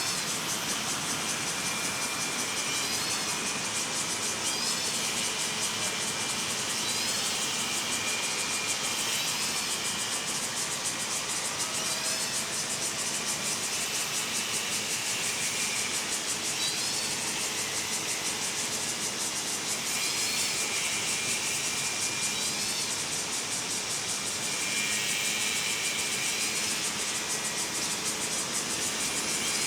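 Dense, steady high-pitched drone of a summer cicada chorus, with short rising bird chirps repeating every second or two, over a low distant city rumble.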